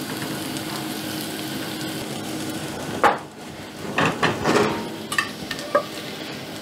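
Melted parmesan and oil sizzling steadily in a hot frying pan, then a sharp knock about three seconds in, followed by a metal slotted spatula scraping and clicking against the pan as it slides under the folded escalope.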